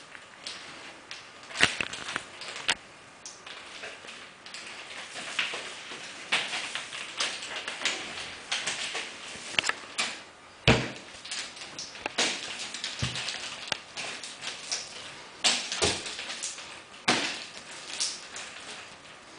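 Nunchaku being swung and spun: repeated whooshes of the sticks cutting the air, broken by sharp knocks now and then as a stick is caught in the hand or strikes, the loudest a little after halfway.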